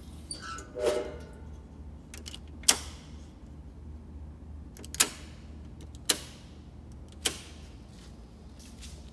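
A short squeak about a second in, then four sharp clicks or knocks one to two seconds apart, each with a brief ringing tail, over a steady low hum.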